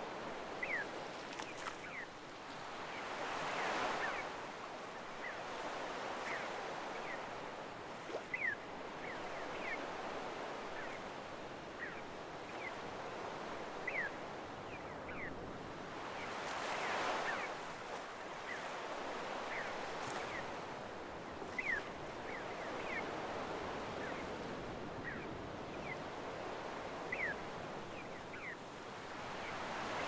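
Small waves washing up on a sandy beach: a steady surf that swells three times, about thirteen seconds apart. Over it, seagulls give short high cries every second or so.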